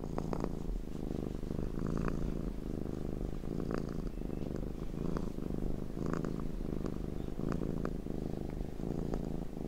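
Domestic cat purring, a steady low rumble that swells and eases in a slow rhythm about every two seconds.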